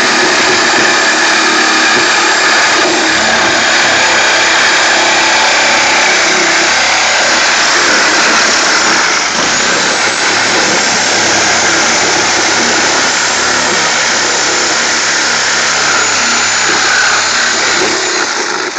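Corded reciprocating saw cutting through a car's sheet-metal roof, running loud and continuously with no pause.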